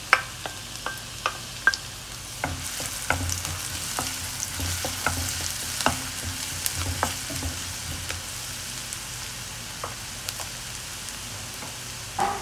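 Chopped ginger and garlic sizzling in hot oil in a non-stick wok, being sautéed and stirred with a wooden spatula that scrapes and taps on the pan. The sizzle is busiest through the middle and settles a little near the end.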